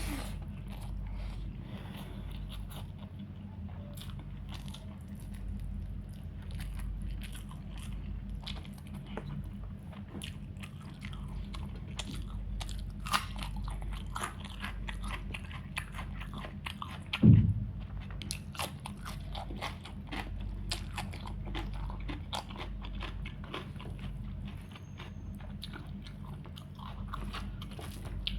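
Close-miked eating of a chicken curry, rice and salad meal: repeated crunching bites and chewing, over a steady low hum. One louder low thump about seventeen seconds in.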